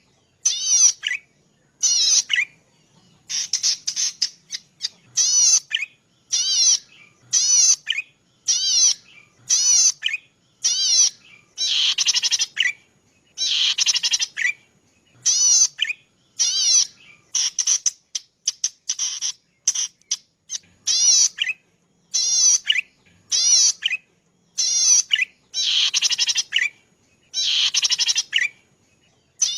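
Cici padi (zitting cisticola) calling over and over: short, high, rapidly warbling phrases about once a second, some drawn out for about a second, with brief gaps between them.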